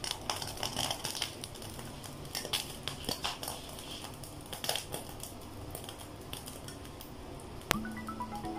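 Cooking fat heating in a frying pan over a gas burner, giving small irregular crackles and ticks. Near the end there is a sharp click, then marimba-like music begins.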